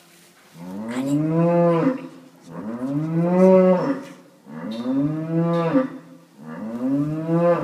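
Holstein cow in labour mooing four times, long low calls that rise and fall in pitch, as she strains while the calf is pulled out by its front legs.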